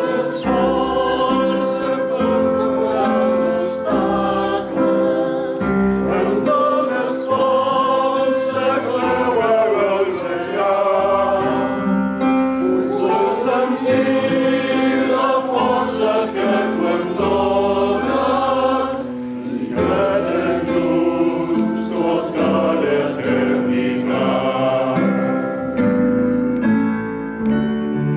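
A gospel choir and male solo voices sing a slow ballad together, accompanied by a Korg stage keyboard.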